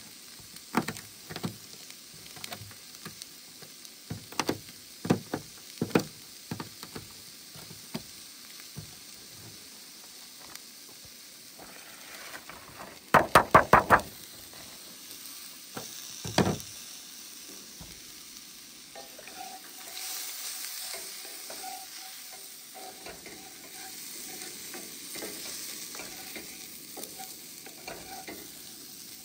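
Knife chopping bacon on a plastic cutting board, a string of sharp taps. About halfway through comes a quick flurry of loud knocks as the bacon is scraped off a flexible cutting mat into the pan. After that, diced vegetables and bacon sizzle in the pan on a camp stove while a wooden spoon stirs them.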